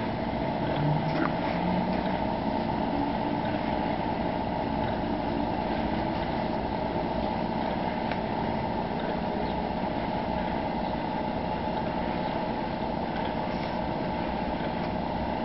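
An engine running steadily at an even speed, a constant drone with no change in pitch.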